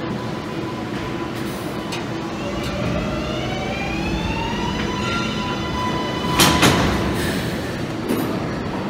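Kawasaki R142A subway train pulling out of the station: its traction motors give a rising whine as it picks up speed over a steady rail rumble. About six and a half seconds in there is a brief loud clank, and a smaller click near the end.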